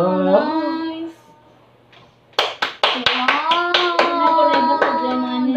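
A woman's voice talking, then after a short pause a quick run of sharp hand claps about two and a half seconds in, followed by more voice with long, drawn-out pitches.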